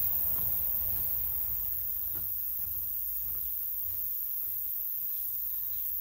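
Hiking boots stepping on a steel-mesh boardwalk, the footsteps growing fainter as the walker moves away. Under them runs a steady high hiss and a low rumble.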